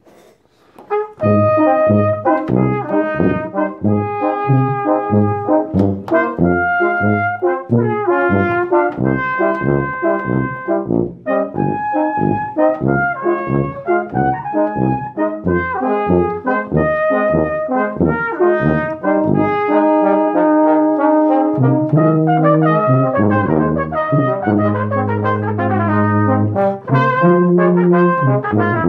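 Live brass ensemble starting a piece about a second in. It plays short, detached chords in a steady rhythm, then moves into longer held notes over a low bass line in the last third.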